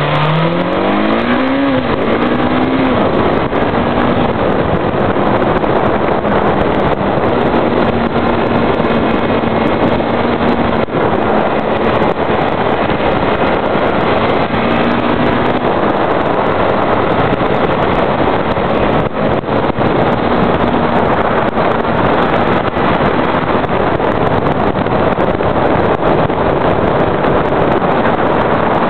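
Yamaha FZ600 air-cooled inline-four motorcycle engine accelerating hard, its pitch rising over the first few seconds, then holding steady revs through the bends. A steady rush of wind on the microphone runs over it.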